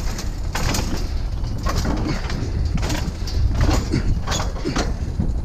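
Scrap items being shoved and slid into a packed truck load: about seven short scrapes and knocks over a steady low rumble.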